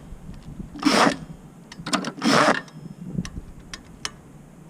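Scooter's front wheel turning under load with two short rasping, rubbing bursts, about a second in and again just past two seconds. It lacks the noise the rear wheel makes, so the front wheel sounds healthy.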